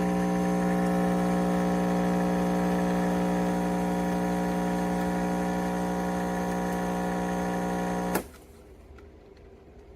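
Espresso machine's water pump running with a steady hum, then cutting off sharply with a click about eight seconds in. The machine is pumping out water and doing nothing else.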